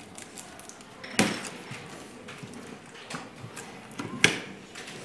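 Classroom of children working at their desks: scattered small clicks and taps over a low room background, with two sharp knocks, one about a second in and one about four seconds in.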